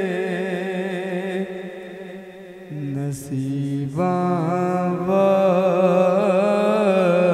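Unaccompanied devotional singing of a Punjabi naat: a man's voice holding long, wavering notes without clear words. The voice sinks and fades in the middle, then a new held note begins about four seconds in and grows louder.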